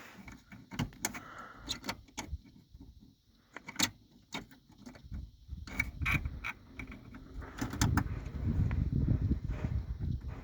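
Scattered sharp clicks and light knocks of screws and parts being handled while fastening a hood release cable in a truck cab, with a low rumbling noise joining in about seven and a half seconds in.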